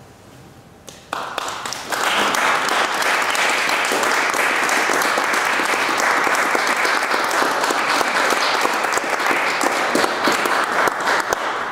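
Audience applauding: the clapping breaks out about a second in, swells within another second and then holds steady.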